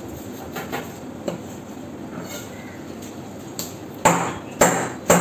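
A large knife chopping through a fish fillet onto a wooden chopping board: a few light taps, then three hard chops about half a second apart near the end.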